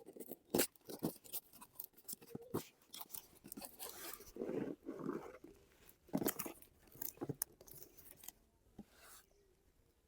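Packaging rustling and crinkling as it is handled, with many irregular sharp clicks.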